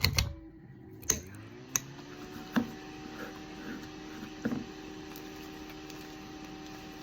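An electric fan switched on with a click about a second in; its motor spins up, rising in pitch, then runs with a steady hum. A few light knocks of handling come over it.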